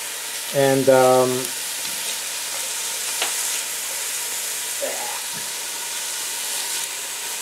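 Chopped onions sizzling steadily in olive oil in a stainless steel pot while being stirred with a spatula as they sauté.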